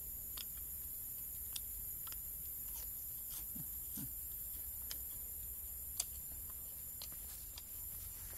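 A person chewing a grilled spider: scattered faint crunches and clicks, with two short low hums about halfway through, over a steady high hiss.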